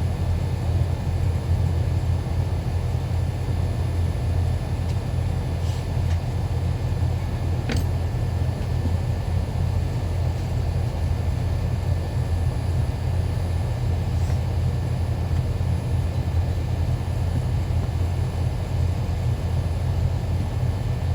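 A steady low rumble that holds an even level throughout, with a few faint clicks at about six, eight and fourteen seconds in.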